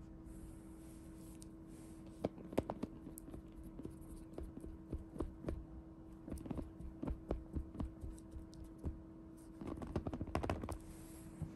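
Irregular clicks and crinkles of a foil-wrapped Kinder Surprise Maxi chocolate egg being handled, coming thick and fast near the end, over a steady low hum.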